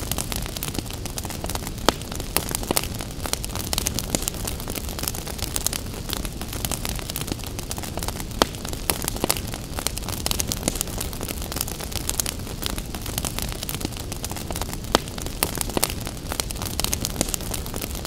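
Wood fire crackling: a dense run of small snaps and ticks with a few louder pops, over a steady low rumble.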